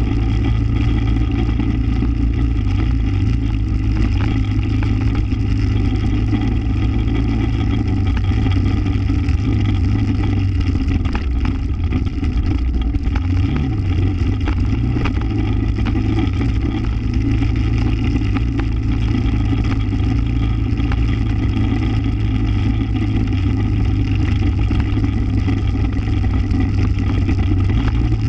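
Small off-road vehicle's engine running steadily under way, heard close up from the machine itself, a continuous drone whose pitch dips briefly about halfway through, with a few faint knocks around the middle.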